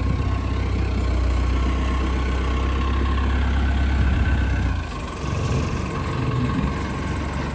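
Forklift engine running with a heavy low rumble that eases off about five seconds in.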